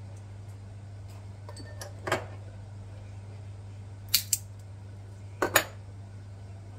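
Metal hand nutcracker cracking hazelnut shells over a glass bowl: a sharp crack about two seconds in, then two quick pairs of cracks around four and five and a half seconds, over a steady low hum.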